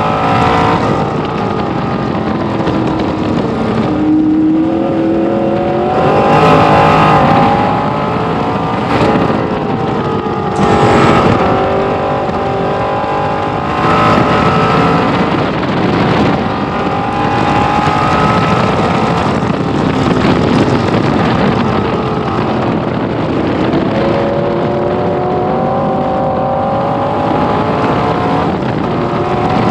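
1966 Corvette race car's V8 engine heard from inside the open cockpit at racing speed, its note repeatedly climbing in pitch under acceleration and dropping sharply on lifts and gear changes.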